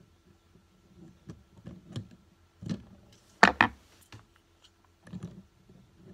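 Fidget spinners clicking and clacking as they are handled, lifted off and set down on a stack and the tabletop. There are scattered light clicks, and two sharp clacks in quick succession about three and a half seconds in.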